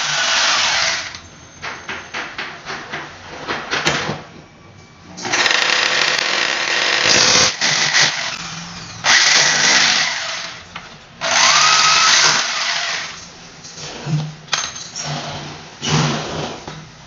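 Electric power drill boring into the wall in repeated bursts of one to two seconds, with short pauses between them.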